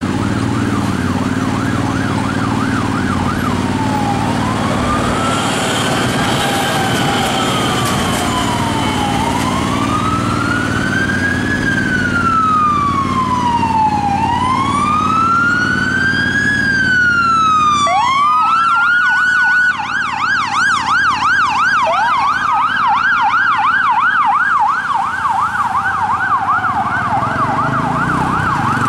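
Sirens of an emergency doctor car and an ambulance on a call: a fast yelp for the first few seconds, then a slow wail rising and falling every five seconds or so, switching back to a fast yelp about 18 seconds in, with a second siren's yelp joining a few seconds later. Traffic rumble runs underneath.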